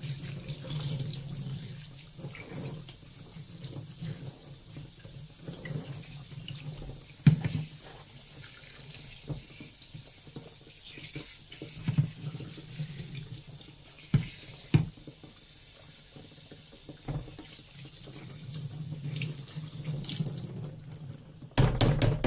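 Cold tap water running over blanched broccoli in a plastic colander and splashing into a stainless steel kitchen sink, with a few sharp knocks along the way. Near the end comes a fast, even rattle.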